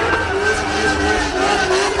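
Drift car engine revving hard at high rpm, its pitch wavering up and down as the throttle is worked.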